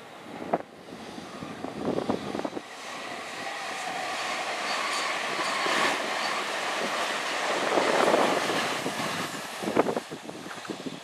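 Tobu 500 series Revaty electric train passing the trackside, its running noise swelling to a peak about eight seconds in and then falling away. Low thumps of wind on the microphone come at the start and again near the end.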